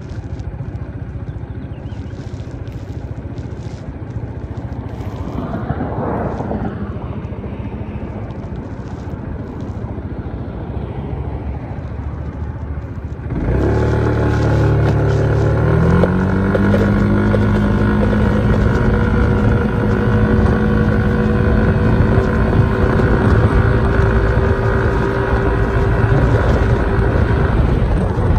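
Yamaha SMAX scooter's single-cylinder engine idling at a stop, with another vehicle passing about six seconds in. About halfway through, the engine revs up suddenly as the scooter pulls away. Its pitch climbs for a couple of seconds and then holds steady as the scooter gathers speed.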